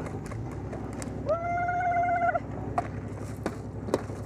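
Truck engine running steadily as the truck drives. About a second in, a high note is held for about a second, and a few sharp clicks follow near the end.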